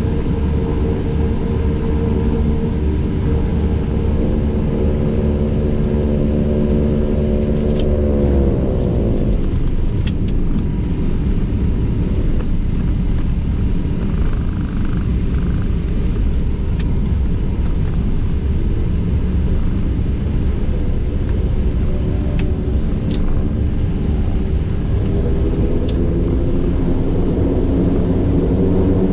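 The King Air A100's twin Pratt & Whitney PT6A turboprop engines and propellers, heard from inside the cockpit. A steady drone of several tones rises in pitch about eight seconds in as power comes up, then gives way to an even rushing noise. Near the end a steady drone with distinct tones returns.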